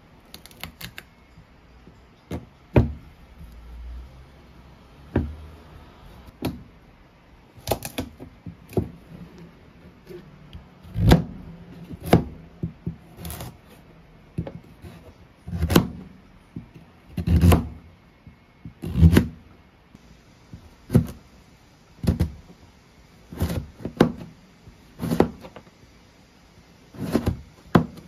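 Chef's knife cutting through raw carrots on a plastic cutting board: about twenty separate crunchy chops, each ending in a knock of the blade on the board, coming every second or two.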